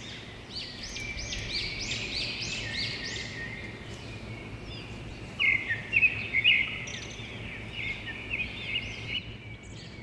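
Bird chirping: quick runs of short, arching high notes in the first three seconds, then more chirps from about five seconds in.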